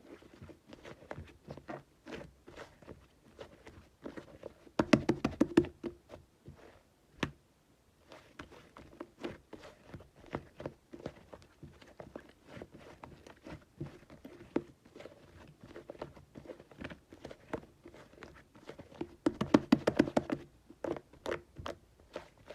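Slime being kneaded, pressed and poked by hand, giving a stream of irregular sticky clicks and small pops, with two denser, louder runs of crackling clicks about five seconds in and again near the end.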